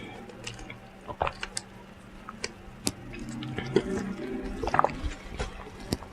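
Close-up wet mouth sounds of eating: scattered lip smacks and small chewing clicks, with a brief cluster of wetter smacks near the end.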